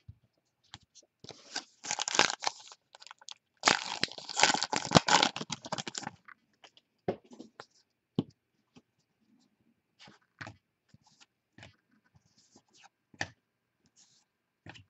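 A trading-card pack's foil wrapper being torn open and crinkled, in two long noisy spells over the first six seconds. After that come scattered light clicks and taps of cards being handled.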